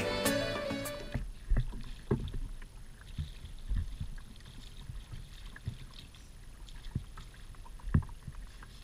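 Background music fading out in the first second, then light wind on the microphone and scattered knocks and taps of rod, reel and landing net against a fishing kayak's hull as a fish is reeled alongside, with one sharper knock near the end.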